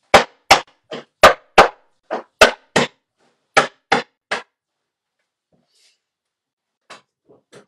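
Ice cubes wrapped in a cloth being struck hard again and again to crush them for a cocktail: about a dozen sharp blows, roughly three a second in short runs, stopping about four and a half seconds in. A few faint knocks follow near the end.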